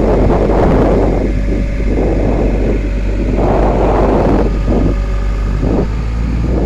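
Boom truck's engine running with a steady low drone, overlaid by irregular rushing gusts of wind on the microphone.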